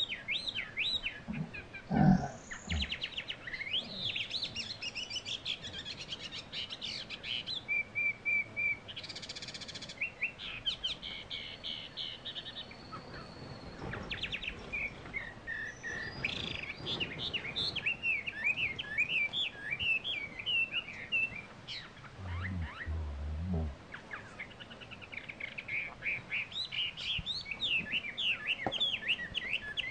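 Wild birds chirping and singing in quick, varied notes, with a brief low thump about two seconds in.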